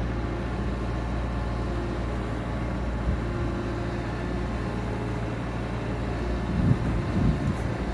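Bobcat Toolcat 5600's diesel engine running steadily, with a few low thumps near the end.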